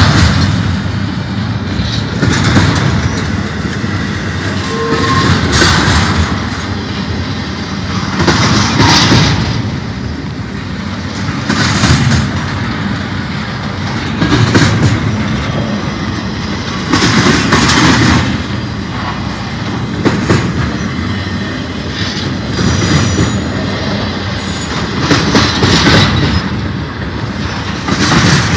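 Double-stack intermodal freight cars rolling past: steel wheels clacking over the rail and rumbling, with loud surges about every three seconds.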